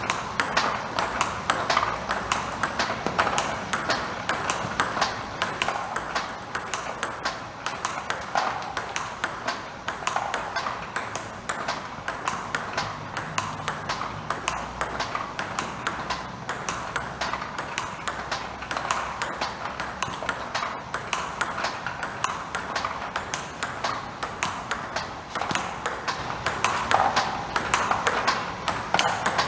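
Table tennis being played: a plastic ball clicking sharply off a bat faced with Kokutaku 868 Spin Power rubber and bouncing on the table, in a steady run of knocks about two to three a second.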